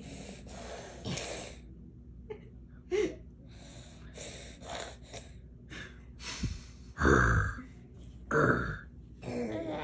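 A baby's short, sharp angry huffs and grunts, about four bursts a few seconds apart, the two loudest near the end.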